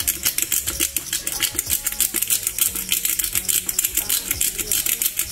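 Disposable black-pepper grinder being twisted by hand, its plastic grinding cap making rapid, regular clicking as peppercorns are cracked.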